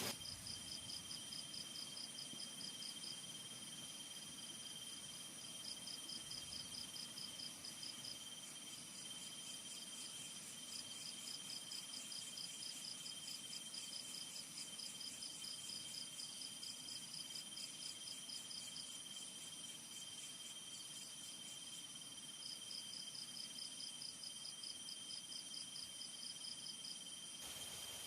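Forest insects chirring: several steady high-pitched tones, with a fast pulsing trill that comes and goes in runs of a few seconds.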